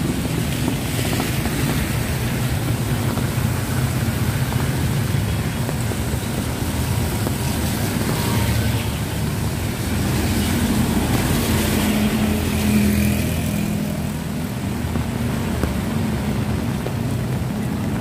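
Small motorcycle engines of passing tricycles (motorcycles with sidecars) running over a steady hiss of heavy rain on a wet street. The engine hum is loudest about ten to thirteen seconds in, as one passes close.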